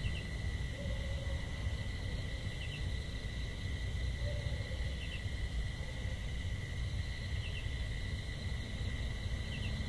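Steady outdoor ambience: a low rumble under a steady high-pitched drone, with a short double chirp repeating about every two and a half seconds.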